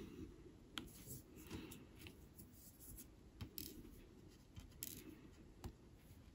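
Faint, irregular clicks and taps of a diamond-painting drill pen picking small drills out of a plastic drill tray and pressing them onto the canvas.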